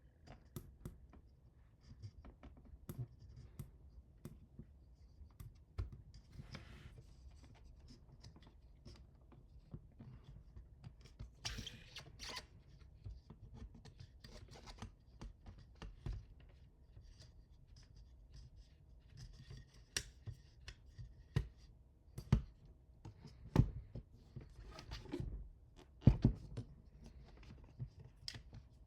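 Hand-assembly handling noises: scattered clicks, scrapes and light knocks of parts and tools being worked, with a few sharper knocks in the second half.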